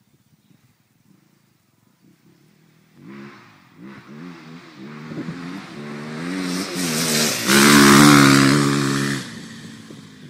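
Motorcycle engine revving, its pitch rising and falling with the throttle, coming in about three seconds in and growing louder as the bike approaches, loudest near the end as it passes close, then dropping away.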